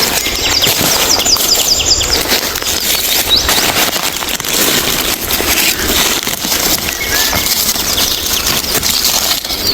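Close rustling and crackling of leaf litter and undergrowth as someone moves through the forest floor. Small birds chirp in the background, with a quick run of short chirps in the first two seconds and a few single chirps later.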